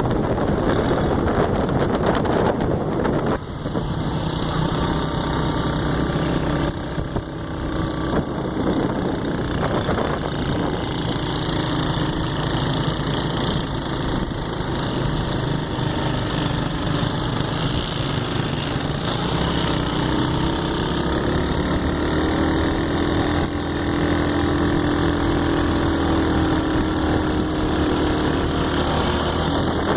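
A motor vehicle's engine running steadily over a continuous rush of road and wind noise, its pitch shifting slightly about twenty seconds in.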